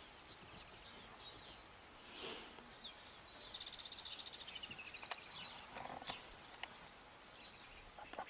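Faint bush ambience of wild birds chirping, with a quick run of repeated high notes in the middle, a brief rustle about two seconds in and a single sharp click about five seconds in.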